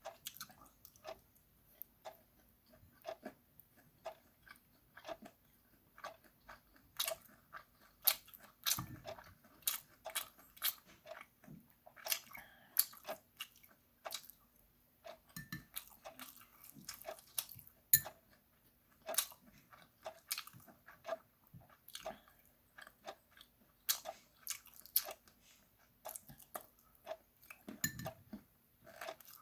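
Chewing and mouth noises while eating charcoal-grilled chicken feet over rice: a steady run of short, wet smacks and crunches at about one or two a second, some louder than others.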